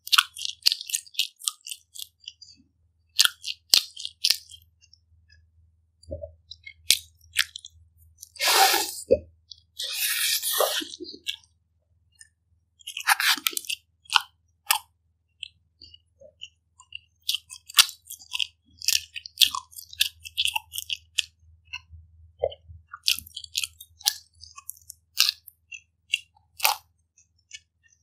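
Close-miked chewing of a chicken supreme pizza slice: irregular crunches of the crust and wet mouth clicks, with a couple of longer noisy sounds about nine and ten seconds in.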